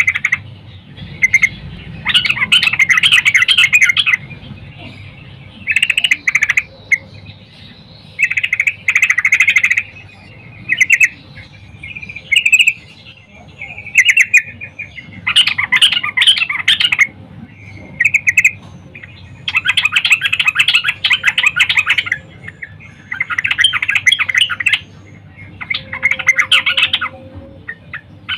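Female yellow-vented bulbul (trucukan) calling to draw males: a series of short bursts of rapid chattering notes, each one to two seconds long, with pauses between them.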